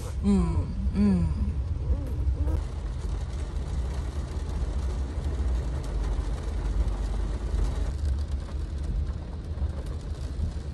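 A baby fusses with a few short, wavering cries in the first couple of seconds. After that comes a steady hiss of rain on the car over a low rumble of the car cabin.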